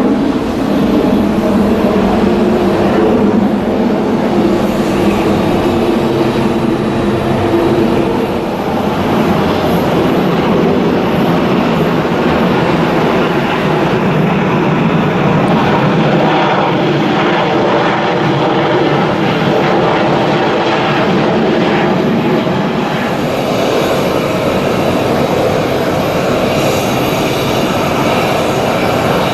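Jet airliner engines running loud and steady: first a Delta Air Lines Airbus A330-200 twin-jet, then, after a cut about 23 seconds in, a Southwest Airlines Boeing 737-700 with its CFM56 turbofans.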